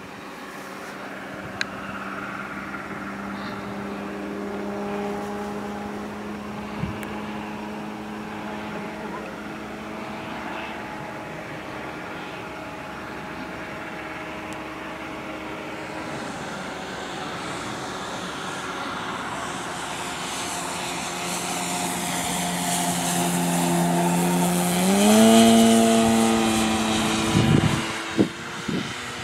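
Quarter-scale RC Piper Cub's electric motor and 20x6 propeller running in flight: a steady droning whine with a rising hiss as the plane comes nearer. Near the end the pitch steps up quickly as the throttle opens, and the sound peaks at its loudest.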